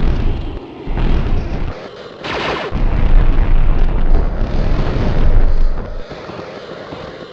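Electrical sound effect: a loud, low, crackling rumble that comes in surges, with a short hissing zap falling in pitch about two seconds in.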